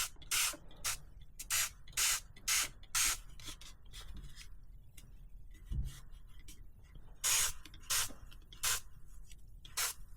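Dawn Powerwash dish spray bottle being squirted onto a bicycle rear derailleur: about a dozen short sprays from the trigger nozzle in quick runs, with a pause around the middle.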